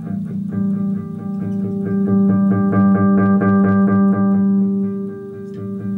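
Music: a keyboard plays sustained chords over an evenly pulsing low bass line.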